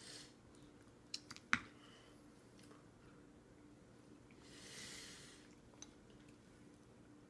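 Plastic baby spoon clicking against a plastic bowl: three quick clicks about a second in, the last the loudest, and one more small click near the end. A soft breathy sound around five seconds in.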